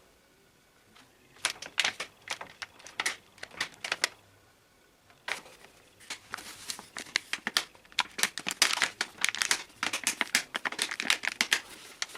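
Plastic toys and packaging being handled, crinkling with rapid sharp clicks and rattles, in two stretches with a short pause between them.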